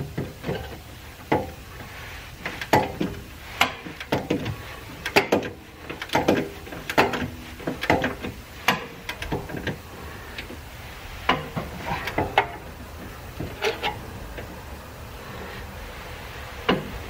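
Irregular metallic clinks and knocks of hand tools as a torque wrench is set and its socket fitted onto a suspension lower control arm bolt, some strikes ringing briefly.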